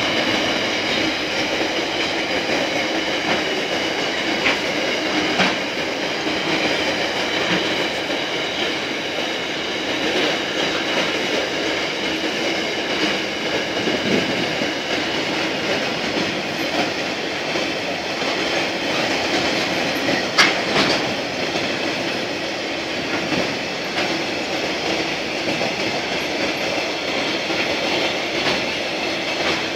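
Coal wagons of a freight train rolling past at close range: a steady rumble with a faint high wheel squeal and occasional sharp clanks, the loudest about twenty seconds in. The locomotive's diesel engine drops away right at the start.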